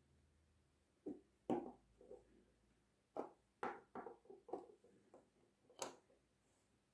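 A string of about ten light taps and clicks as Bakugan cards and plastic toy balls are picked up and set down on a tabletop.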